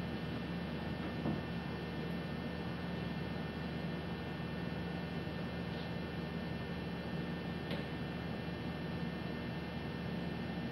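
A steady electrical hum over faint room noise, with a couple of faint clicks.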